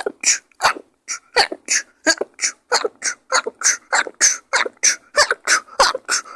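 A person sneezing in rapid-fire succession, short sharp sneezes about three a second without a pause: a sneezing attack.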